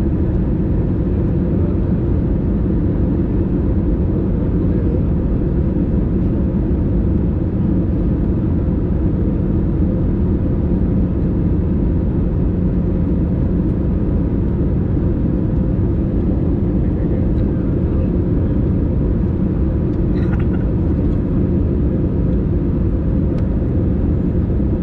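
Steady cabin noise of an easyJet Airbus A320-family jet in descent, heard at a window seat over the wing: the constant low drone of the wing-mounted turbofan engines mixed with airflow over the fuselage.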